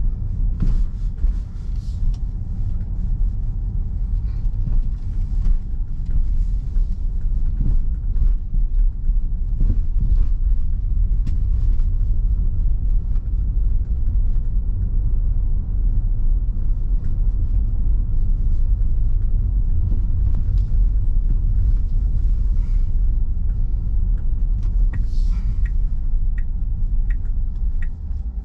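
Car driving, heard from inside the cabin: a steady low rumble of engine and tyre noise on the road. Near the end, as the car slows, the turn-signal indicator ticks about twice a second.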